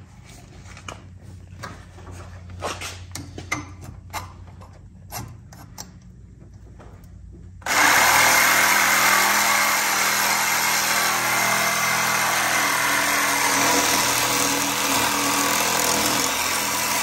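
Milwaukee cordless reciprocating saw cutting through a metal exhaust pipe where it is welded to an old muffler. The saw starts suddenly about eight seconds in and runs steadily and loudly; before that there are only a few light clicks and knocks.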